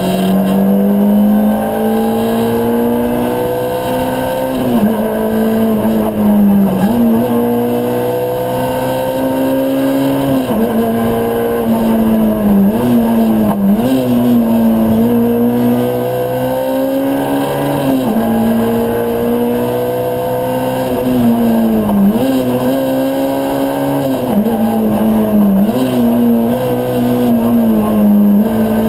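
Ford Fiesta R2 rally car's 1.6-litre four-cylinder engine heard from inside the cabin, driven flat out: the engine note climbs steadily through each gear and drops sharply at the shifts and lifts, about ten times.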